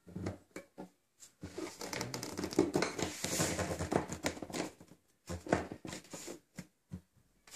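Handling noise as a 3D-printed plastic cello bridge is worked into place under the strings: a few small clicks, then a stretch of rubbing and scraping of the bridge feet on the cello's top, with more short scrapes and clicks near the end.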